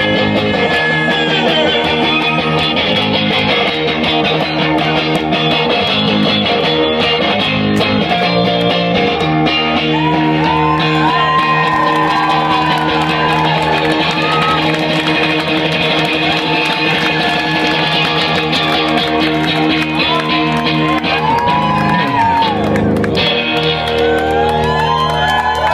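Electric guitar played loud through a Vox amplifier: sustained strummed chords, with notes that bend up and down in pitch through the middle.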